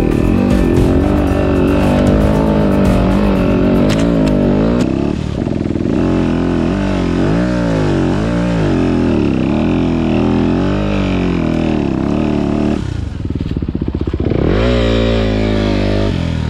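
Off-road trail motorcycle engine running hard, its revs rising and falling again and again with the throttle. Near the end the revs drop briefly, then climb again.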